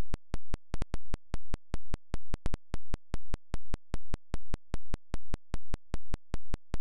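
Digital recording glitch: sharp click-like pulses repeating evenly about four to five times a second over a low hum, the audio stuttering as the recording breaks off.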